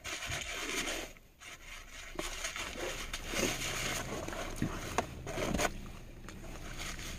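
Paper rustling and crinkling as a napkin and food wrapper are handled, with a few small sharp clicks.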